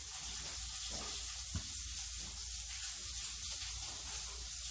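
Steady sizzling hiss of food frying in a pan in the background, with a faint click about one and a half seconds in.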